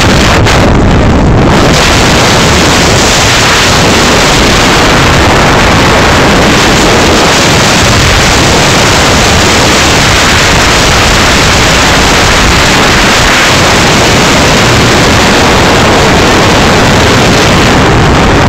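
Helicopter noise mixed with heavy wind buffeting the microphone: a loud, steady rush with no breaks.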